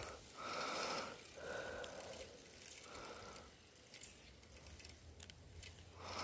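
Spinning fishing reel being cranked, its gears whirring faintly in three short spells over the first few seconds as a lure is reeled in.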